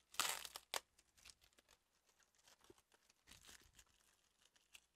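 Plastic wrapping crinkling and tearing as a tightly wrapped package is pulled open: a short louder rustle at the start, then faint, scattered crackles and small clicks.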